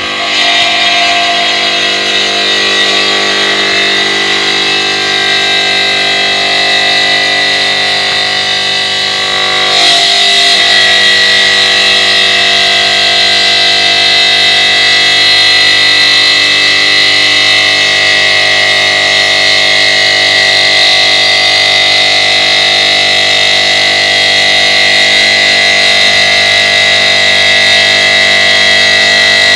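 OSC TITAN 5-axis CNC stone cutting machine running: a loud, steady mechanical whine with several held tones, which steps up and grows louder about ten seconds in.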